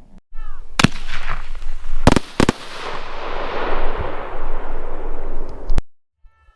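A 75 mm multiple-report aerial firework shell firing: a sharp bang about a second in, then two salute reports in quick succession about a second later, followed by a long rolling echo that fades. The sound cuts off abruptly near the end.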